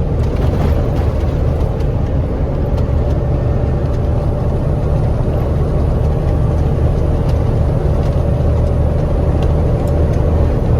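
KAMAZ 4308 truck's diesel engine droning steadily inside the cab while under way, with a faint steady whine above the drone and road and wind noise against the cab in a strong crosswind.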